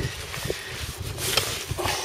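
Wind buffeting the microphone, with rustling and a few sharp knocks as a pike is handled in a mesh landing net.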